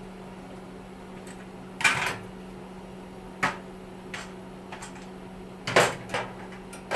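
Sharp knocks and clatters of heater parts being handled and set down during a teardown: one about two seconds in, another about a second and a half later, a lighter tick, then a double clatter near the end. A steady low hum runs underneath.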